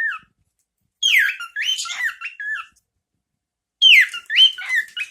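Cockatiel whistling the same short phrase twice, each a run of notes that swoop down and then back up.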